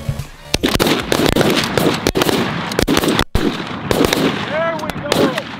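A rapid, ragged volley of shotgun blasts from several goose hunters firing at a passing flock. Geese honk between the last shots.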